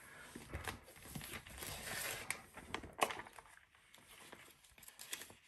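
Plastic sheet protectors and card-stock recipe cards rustling and crinkling as they are handled in a ring binder, with one sharp click about three seconds in.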